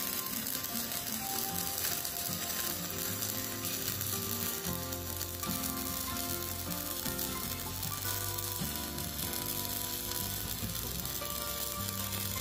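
Stick-welding arc of a Poney MMA 200E mini inverter welder burning a 3.2 mm electrode on thick steel, a steady, even crackle that runs on without a break.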